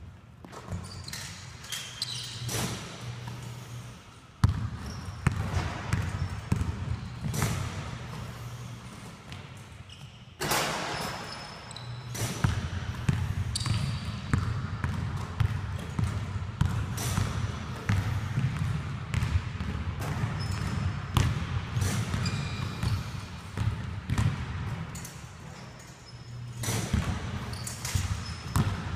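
Basketballs bouncing and thudding on a hardwood gym floor during a shooting drill, with repeated short squeaks, over a low hum that comes and goes.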